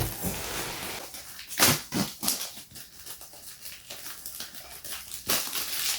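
Packaging being opened by hand: a rustle, then a few short sharp crackles and clicks of plastic and cardboard.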